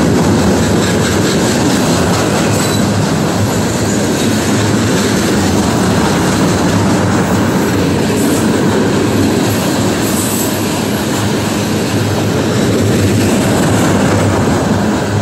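Freight train cars (gondolas loaded with steel coils, then covered coil cars) rolling past, with the loud, steady rumble and clatter of steel wheels on the rails.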